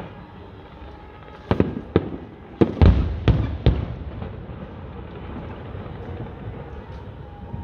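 Fireworks bursting: a quick run of about six loud bangs over roughly two seconds, starting about a second and a half in, the loudest near the middle of the run.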